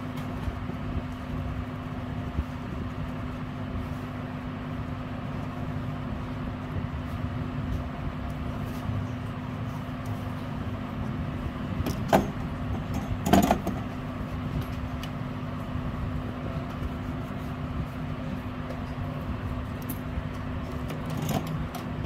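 A steady low hum with a constant tone. About twelve seconds in there are two sharp clicks and a short clatter, as metal tools are set down on the workbench.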